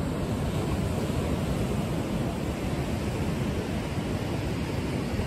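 Wind buffeting the phone's microphone over the steady wash of ocean surf breaking below the pier.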